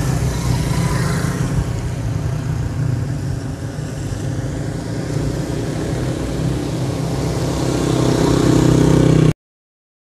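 Small motorcycle engines running as the bikes pass along a road, the engine sound growing louder over the last few seconds. The sound cuts off abruptly about nine seconds in.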